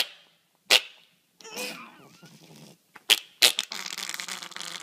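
Pomeranian giving four short, sharp, noisy huffs with its mouth open, two close together near the start and two close together past the three-second mark. A continuous noisy sound over a low hum follows from about three and a half seconds in.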